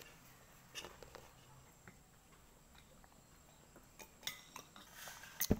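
Quiet eating sounds with a few light clicks of a spoon and plate, then a plastic drinking bottle crinkling as someone drinks from it, and a sharp knock near the end.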